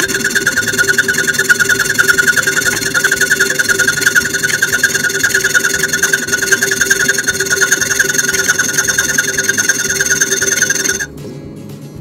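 Hacksaw cutting through a toilet closet bolt (T-bolt), the blade rasping back and forth in quick steady strokes, stopping briefly about eleven seconds in.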